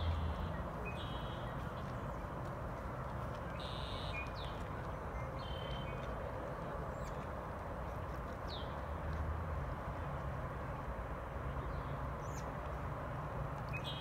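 Steady outdoor background noise with scattered short bird chirps and a few quick whistled glides.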